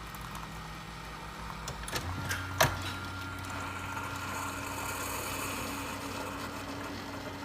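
Keurig single-serve coffee maker running with a steady electric hum that shifts to a deeper, steadier hum about two seconds in, with one sharp click just after.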